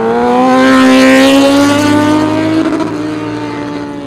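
Motorcycle engine accelerating under load, its note climbing slowly. It is loudest about a second in, then the throttle eases and the note settles a little quieter.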